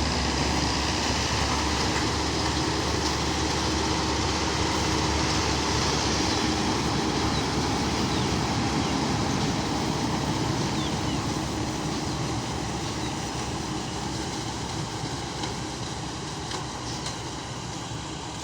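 Marksan combine harvester running: a steady mechanical noise of engine and machinery with a low hum, growing gradually quieter over the second half.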